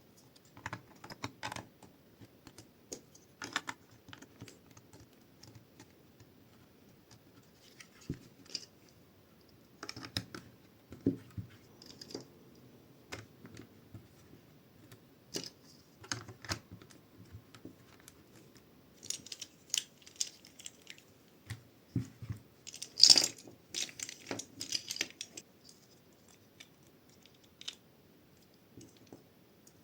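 LEGO bricks being handled and pressed together: scattered plastic clicks and short rattles, with a sharp clack about three quarters of the way through.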